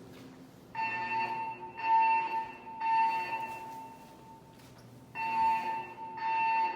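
Siemens MXL-V fire alarm voice evacuation system sounding its temporal evacuation tone through the building speakers. Three pulses of a steady tone follow one another, then comes a pause of about a second and a half, and two more pulses start as the pattern repeats.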